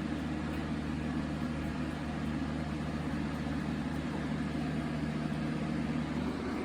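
Box fan running with a steady, even hum.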